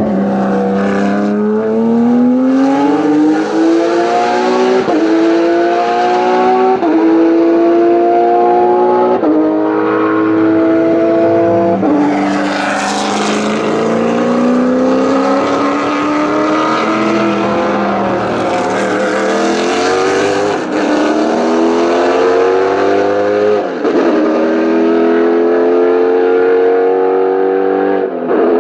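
Racing car engines accelerating hard, one car after another. Engine pitch climbs and drops sharply at each upshift, about every two seconds, with a fresh run up through the gears starting around twelve seconds in and again near twenty seconds.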